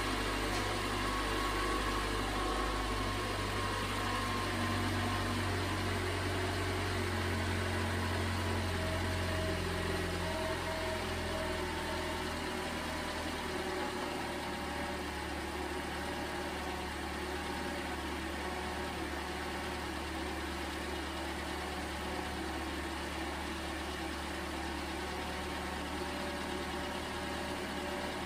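Replacement 2.5-litre four-cylinder engine in a 2011 Toyota Camry idling steadily on its first start after an engine swap, running smoothly. Its note changes and it runs a little quieter about halfway through.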